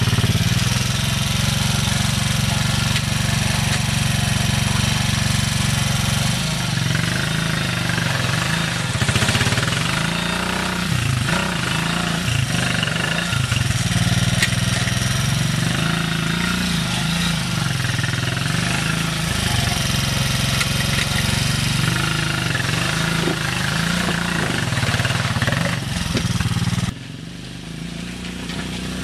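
Kingway 200 ATV engine running steadily, then revving up and down over and over as the quad works through mud. The sound drops away abruptly near the end and comes back just before it ends.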